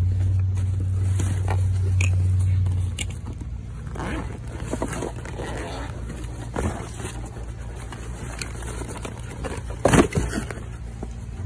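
Plastic wrapping crinkling and a cardboard box scraping as parts are dug out of a shipping box, with a low steady hum over the first three seconds and a sharp knock about ten seconds in.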